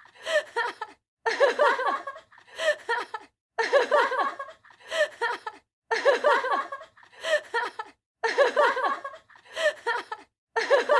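A person laughing in repeated short fits of chuckling. A longer and a shorter burst alternate, each cut off sharply into a brief dead-silent gap.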